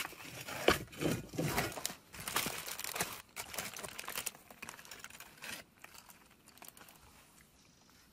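Irregular crinkling and rustling, like something being handled, in a run of uneven bursts that thin out and fade about six seconds in.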